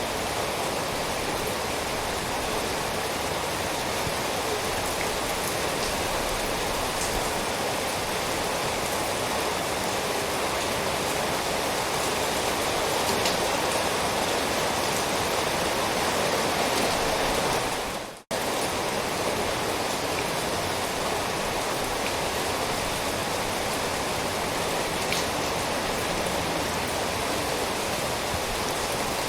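Steady, heavy rainfall with scattered individual drops ticking. About two-thirds of the way through, the rain fades out for a fraction of a second and cuts straight back in.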